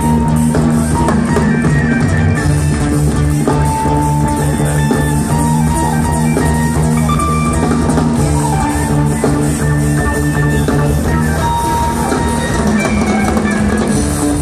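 A live rock band playing loudly, heard from the crowd: electric guitar, bass and drum kit in a continuous jam, with several notes held for seconds at a time over the groove.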